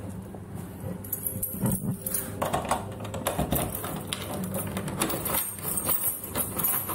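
Keys jangling and a key clicking in a door lock, a run of small metallic clicks and rattles.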